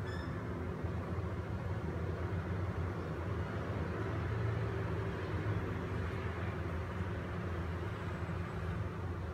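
Steady low hum with a fainter hiss above it, a constant background noise with no distinct events.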